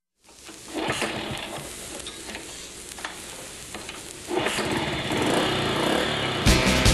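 A small engine running roughly, getting louder about four seconds in. Music begins near the end.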